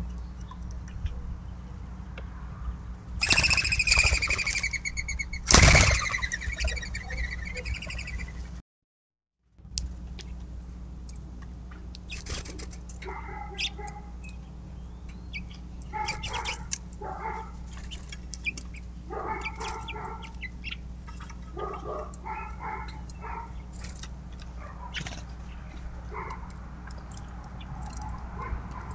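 Small birds chirping in short scattered bursts over a steady low hum, with two louder whistled calls a few seconds in; the sound drops out for about a second near a third of the way through.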